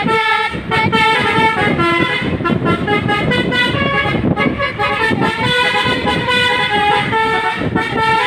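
A truck's telolet horn, a multi-tone air horn, sounding a quick tune of stepping notes that keeps going throughout, over the rumble of the vehicle.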